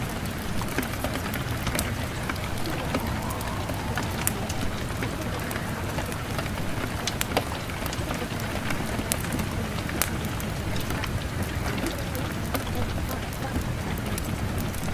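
Steady rain, an even hiss with many sharp drops pattering irregularly.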